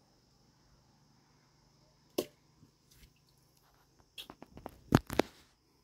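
Sharp clicks and knocks from a long fishing pole being handled and swung out over the water: one about two seconds in, then a quick run of them near the end, the loudest about five seconds in.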